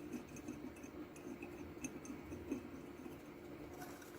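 Faint, irregular small metallic ticks and clicks as bolts are threaded by hand into a boiler flange over a new gasket, with a sharper click at the very end.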